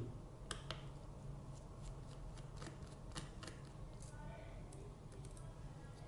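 Faint, irregular small clicks and taps of a Phillips screwdriver and fingers working the single screw on the laptop's M.2 SSD heatsink plate.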